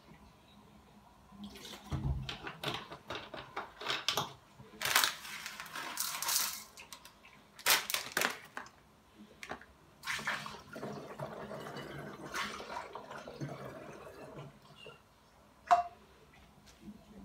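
Water being poured from a plastic bottle into a steel mug and then through a plastic funnel into a glass bottle. Clinks and knocks come as the bottles and the mug are handled, with a sharp clink near the end.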